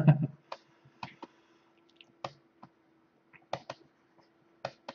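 A brief voice sound right at the start, then about ten sharp computer-keyboard key clicks at irregular intervals over a faint steady hum.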